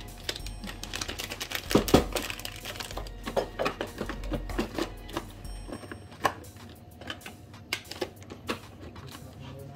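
Spice jars and bottles clinking and knocking together as a hand rummages through a crowded kitchen drawer, a quick irregular clatter with a few sharper knocks.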